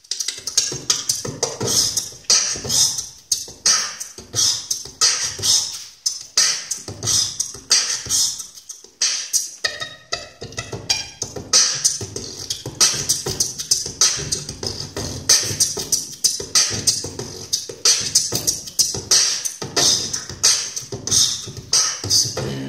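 Live beatboxing into a handheld microphone: a dense, fast rhythm of vocal kick drums, snares and hissing hi-hats, with a brief pitched tone about ten seconds in.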